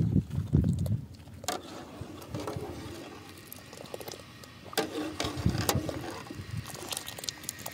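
Metal ladle stirring rice in a pot of water, with a few sharp clinks of the ladle against the pot. A low rumble fills the first second.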